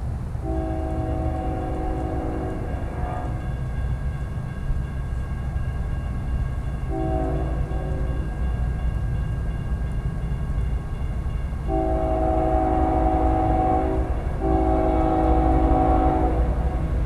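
Nathan K5HL five-chime air horn on a BNSF ES44DC diesel locomotive sounding a multi-tone chord four times: long, short, long, long. Underneath, the train's low rumble grows louder as it approaches.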